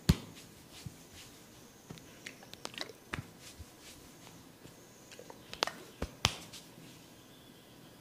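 Hands working a head massage: a few sharp slaps or snaps, one at the start, one about three seconds in and three close together near six seconds, with softer taps and rubbing between.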